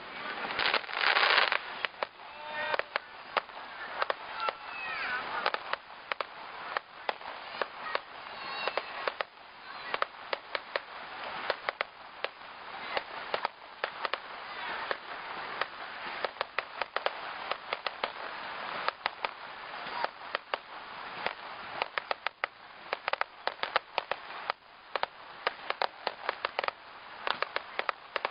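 A fireworks display: a long run of sharp bangs and crackling reports from shell bursts, coming thick and fast. The loudest burst is about a second in.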